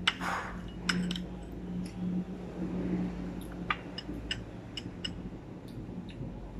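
Tableware clinking while eating: a ceramic soup spoon and chopsticks tapping against porcelain bowls and plates, about a dozen light, irregular clinks over a steady low hum.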